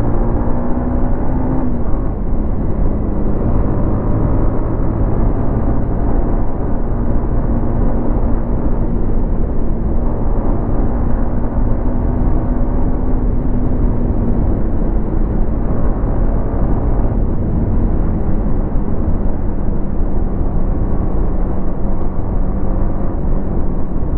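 Yamaha MT-15's 155 cc single-cylinder engine running through its stock exhaust while being ridden, the engine note holding fairly steady with small rises and dips in pitch.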